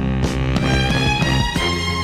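Background music: sustained instrumental notes with a steady bass line, changing notes every fraction of a second.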